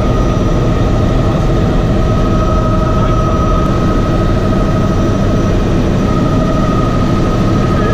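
Cabin noise of a Bell 206B JetRanger III helicopter in cruise flight: the Allison 250 turboshaft's steady high whine over an even, dense rotor and engine rumble.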